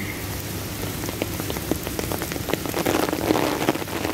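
Heavy rain pouring down, a steady hiss of rain on wet paving, with many sharp individual drops tapping on the umbrella overhead.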